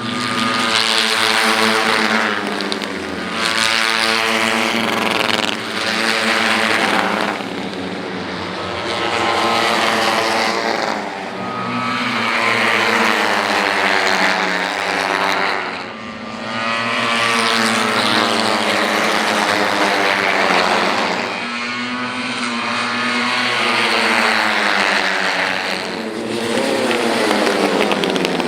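J-GP3 racing motorcycles' 250 cc single-cylinder four-stroke engines revving hard. The pitch climbs and drops with throttle and gear changes, and the sound swells and fades in waves every few seconds.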